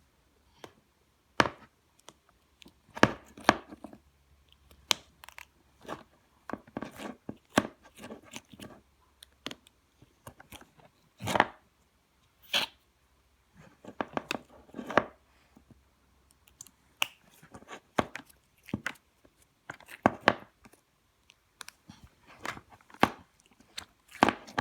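Noise putty being squished and worked by hand, making irregular short squelches and sticky tearing sounds, some with a brief fart-like buzz, between small clicks.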